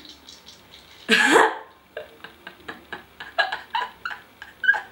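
A woman's laughter, mostly held in, in short choppy bursts, after one loud short vocal cry with a rising pitch about a second in.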